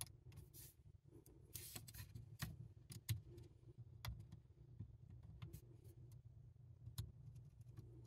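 Faint scattered clicks and a brief scrape of a small screwdriver tip poking into the side vent slots of an ASUS ROG Zephyrus M GM501 laptop, pushing at the clips that hold the bottom panel, over a low steady hum.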